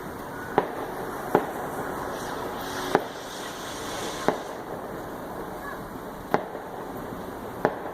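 Fireworks going off: six sharp bangs at uneven intervals over a steady background hiss.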